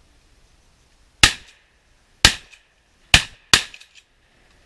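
Four shotgun shots fired at ducks, about a second apart with the last two close together, each followed by a short echo.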